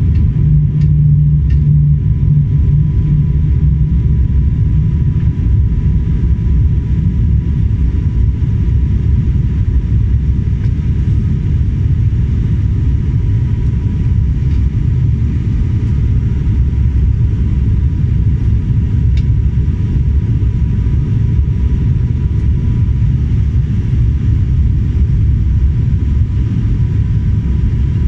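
Steady loud rumble of an airliner cabin in flight, engine and airflow noise heard from a window seat, with a faint steady whine over it.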